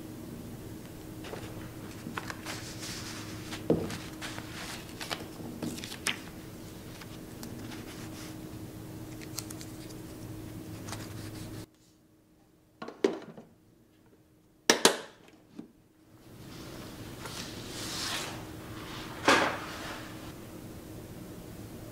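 Scattered light taps and clinks of kitchen utensils and dishes being handled, over a steady low room hum. Partway through the hum drops out for a few seconds, leaving a few sharp clicks. After it returns there is a soft swish and one sharper knock.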